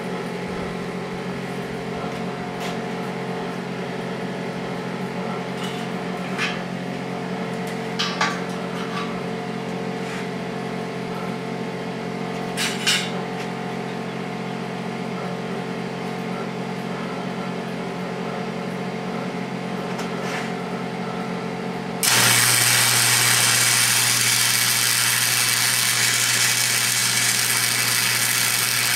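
A steady machine hum with a few short knocks, then about 22 s in a flux-core wire-feed welder strikes its arc: a loud, steady crackling hiss as the steel wedge is welded onto the log splitter beam at about 140 amps.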